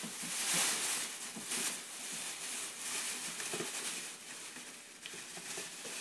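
Plastic bag rustling and crinkling as it is handled, with irregular shuffling and scraping.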